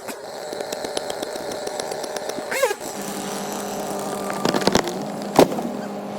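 Chainsaw engine running steadily, with a sharp knock about five seconds in.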